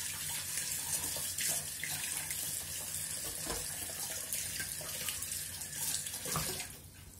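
Water running steadily from a kitchen tap, with a couple of knocks. The flow stops suddenly near the end as the tap is turned off.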